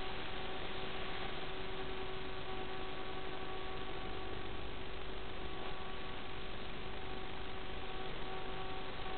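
Steady hiss with a faint, unchanging hum of a few tones underneath.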